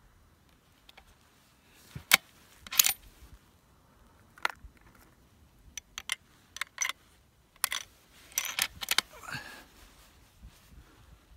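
Scattered metallic clicks and clacks from a scoped bolt-action rifle being handled, irregularly spaced. The loudest come about two and three seconds in, with a busier run of clicks near the end.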